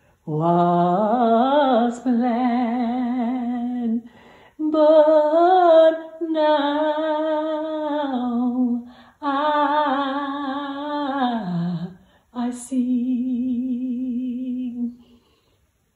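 A solo voice humming a slow hymn melody in long, wavering held notes, about six phrases with short breaths between them, trailing off near the end.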